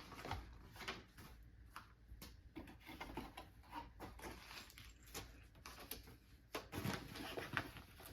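Quiet handling noise from a cardboard box and its contents being rummaged through: scattered, irregular light clicks, taps and rustles.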